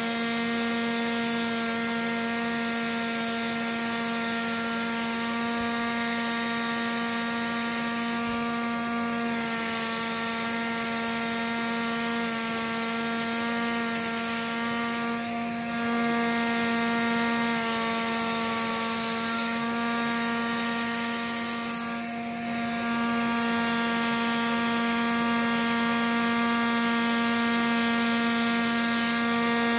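Pneumatic air scribe buzzing steadily at one pitch as its stylus chips rock matrix away from around an ammonite, dipping briefly twice, about halfway and two-thirds through.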